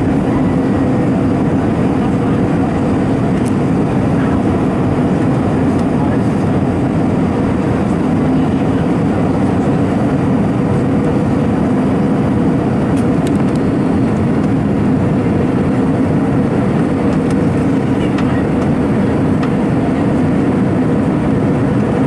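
Steady cabin noise inside an Airbus A320 on final approach, heard from a seat over the wing: the CFM56 engines running with a steady low hum under rushing airflow.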